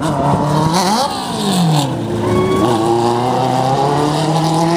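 Winged lightning sprint cars racing on a dirt oval, their engines running hard. One car passes, its pitch dropping about a second and a half in, and then the engines hold a steady note that slowly climbs as the cars accelerate.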